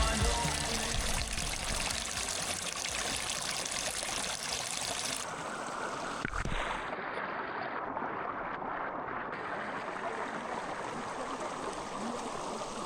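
Rushing water of a mountain stream and waterfall, a steady even rush. About five seconds in it turns duller, losing its high hiss, and there is a single short click a second later.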